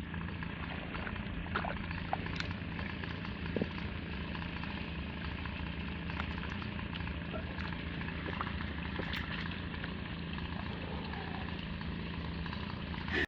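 Water jetting steadily from a PVC pipe as it is pushed through the soil under a concrete driveway, with a low steady hum and a few faint knocks.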